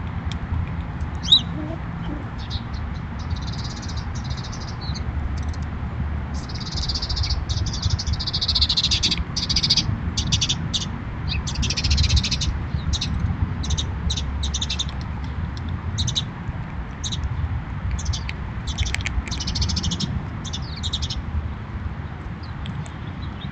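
Small birds chirping and twittering in bursts of a second or so, busiest in the middle, with scattered short clicks and a sharp click about a second in, over a steady low rumble.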